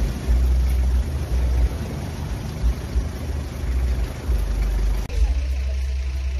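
Outdoor roadside background noise dominated by a loud, uneven low rumble that swells and drops, with a steady hiss above it.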